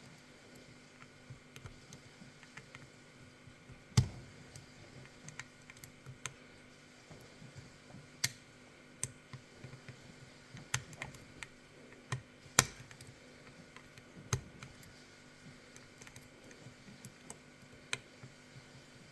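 Irregular small metallic clicks and taps of lock-picking tools working the pin stacks of an Izis pump lock, with a few sharper knocks about 4, 8 and 12 seconds in.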